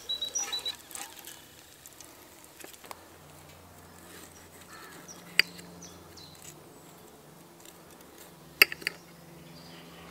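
Fork and knife clinking against a ceramic plate while cutting a roast potato: a sharp clink about five seconds in and a louder double clink near the end, with quiet between.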